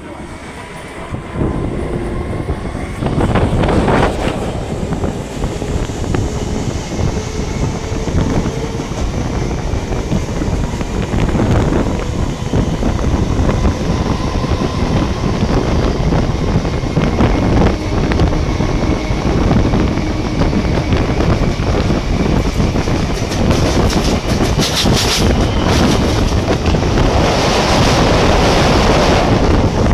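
Indian passenger train running at speed, heard from the open window of a carriage: wheels rumbling and clattering on the rails, with wind buffeting the microphone. It grows louder and harsher near the end as the train crosses a steel girder bridge.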